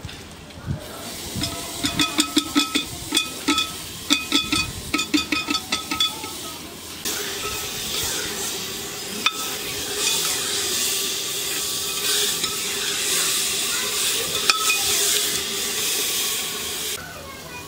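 A long metal ladle stirring dal in a metal cooking pot, clinking and ringing against the pot in a quick run of strikes, several a second. Then a steady sizzling hiss from the cooking pot that cuts off suddenly near the end.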